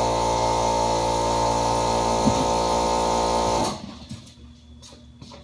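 A machine running with a steady hum, switched off about three and a half seconds in, its sound stopping abruptly.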